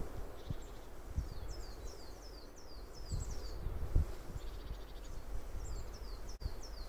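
Small songbirds singing: quick runs of high chirps, each falling in pitch, repeating every second or so. Underneath runs an uneven low rumble with a few soft thumps.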